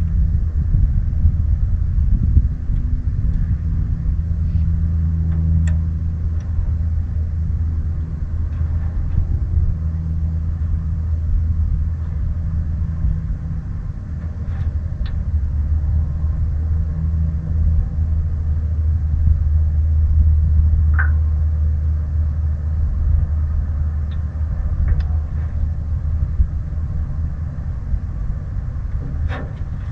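Small boat motor running steadily, a low even hum that drives the boat along.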